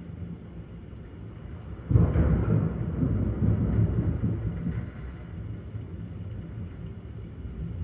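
Thunder from a nearby lightning strike: a sudden crack about two seconds in, rolling into a low rumble for about three seconds before fading back.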